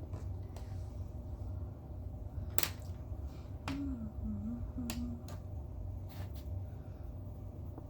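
A few sharp, light clicks, the loudest about two and a half seconds in, over a steady low room hum. A short wavering low tone comes midway.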